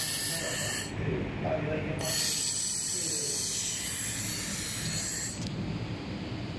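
Handheld fiber laser welder working on 2 mm aluminium, giving a high-pitched hiss in two bursts: one under a second long at the start, then a longer one of about three seconds beginning two seconds in, over a steady low machine hum.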